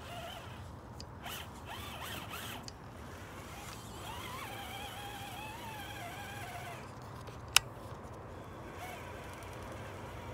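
Electric motor and geared drivetrain of a Traxxas TRX-4 RC crawler whining in short rising bursts as it is throttled on a climb, then a steadier whine wavering in pitch for a few seconds in the middle. A single sharp click, the loudest sound, comes about three-quarters of the way through.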